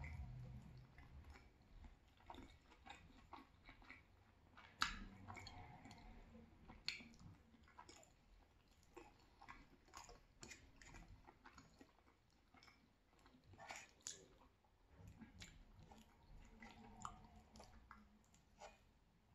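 Faint close-miked chewing of soft, cheesy penne pasta, with scattered wet mouth clicks and a sharper click about five seconds in.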